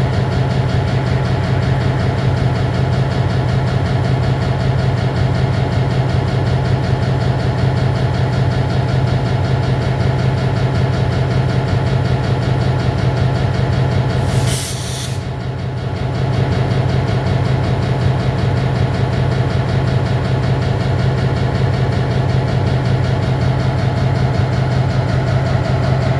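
EMD MP15 diesel switcher locomotive idling steadily up close. A brief sharp hiss of released air comes about halfway through.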